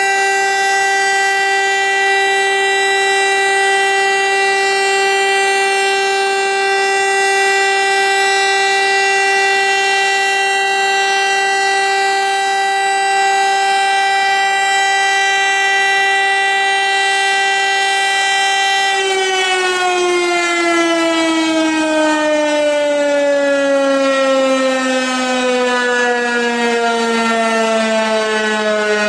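VEM DS 977 mechanical electric siren sounding a steady single-pitch test tone. About two-thirds of the way through it is switched off, and its rotor winds down, the pitch falling slowly and steadily.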